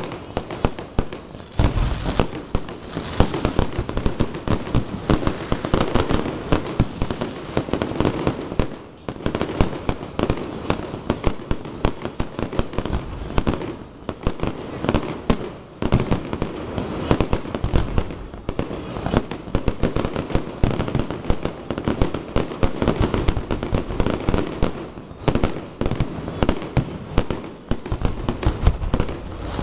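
Aerial fireworks display: a rapid, near-continuous barrage of shell bursts and crackling stars, broken by a few short lulls.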